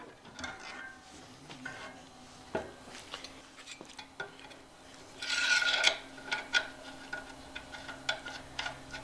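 A flare nut on a brass gas line being threaded by hand onto a brass elbow fitting clamped in a bench vise: light metal clicks and taps, with a short scraping rub about five seconds in.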